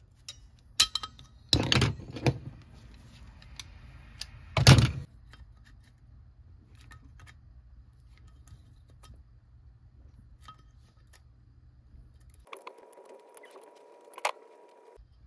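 Metal clinks and knocks of pliers and small parts against a vise's jaw plate, a few sharp knocks in the first five seconds, the loudest about five seconds in, then light scattered ticks. A faint steady hum comes in near the end, with one more click.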